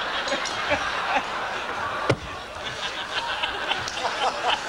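Banquet audience laughing at a joke, many voices together, with one sharp knock about two seconds in.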